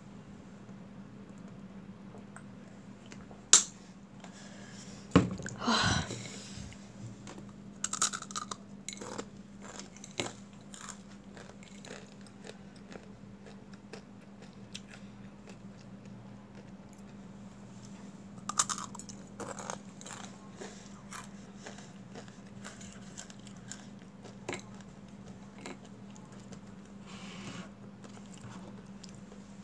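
Close-up crunching and chewing of dry, uncooked Mamee Monster snack noodles, broken by irregular crisp bites, with a few louder crunches in the first several seconds and again a little past halfway.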